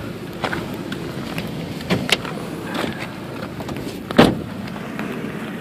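Door of a 2000 Honda Civic coupe shut with one solid thump about four seconds in, after a few light clicks and knocks from handling inside the car.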